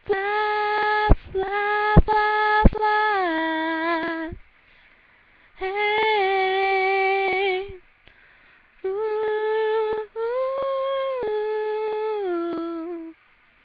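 A female voice singing unaccompanied and without words, three long held notes in turn, each stepping down in pitch at its close. There are a few sharp clicks during the first phrase.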